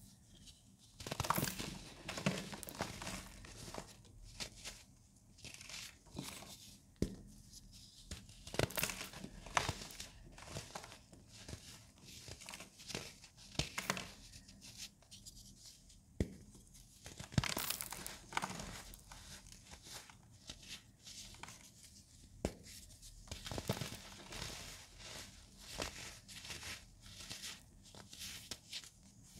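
Molded blocks of dried baking soda crushed and crumbled by hand: irregular dry, crackly crunches and powdery crumbling, with louder snaps every few seconds.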